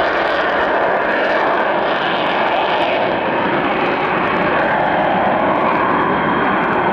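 Twin turbofan engines of an F-15E Strike Eagle running at taxi power as the jet rolls slowly along the taxiway: a loud, steady jet rush with a faint high whine over it.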